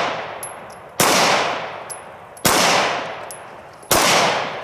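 Walther PPS LE 9mm pistol firing three aimed shots, about a second and a half apart, each echoing away over about a second.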